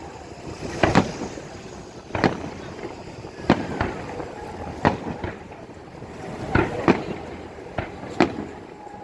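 Fireworks display: aerial shells bursting in sharp bangs, about ten of them at uneven intervals, roughly one a second.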